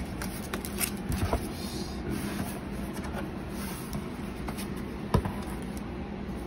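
Handling of a vinyl record's cardboard jacket and packaging: soft rustles and light taps, with one sharp knock about five seconds in, over a steady low background hum.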